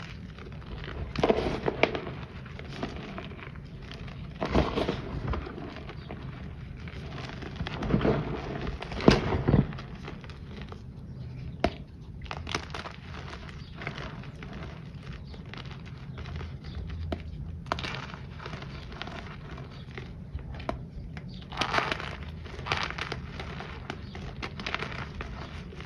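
Handmade pressed-powder shapes and chunks being squeezed and crushed between bare hands, giving irregular crisp crunches and crumbles, a few of them louder and sharper, with soft powdery rustling between. The pieces are a little crunchy, being made from a different batch of powder.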